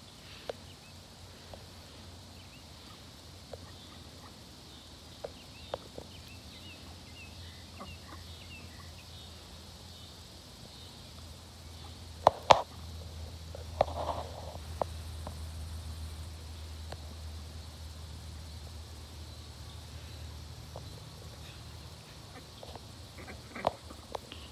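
Small group of domestic ducks foraging in grass, with a few short calls and scattered soft clicks. A couple of louder sharp sounds come about halfway through.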